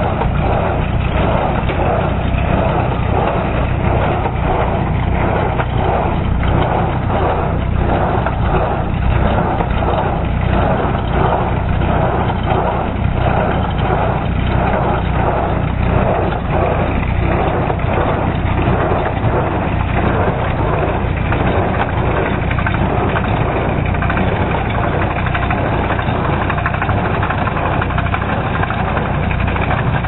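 A New Holland small square baler running off a Ford tractor's PTO while baling hay. The tractor engine runs steadily under a regular, rhythmic clatter from the baler's plunger compressing hay.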